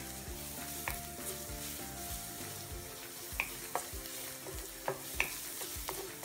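Minced garlic sizzling in oil in a non-stick wok as it is stirred with a wooden spatula, which clicks and scrapes against the pan several times.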